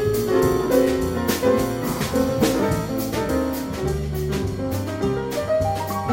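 Jazz piano trio music: piano, double bass and drum kit, with cymbal strokes keeping time.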